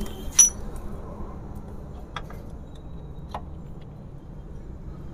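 Metal parts clinking in a scooter's opened final-drive gear case as a steel gear shaft is handled and set in its bearings: one sharp clink with a brief ring about half a second in, then a few fainter clicks.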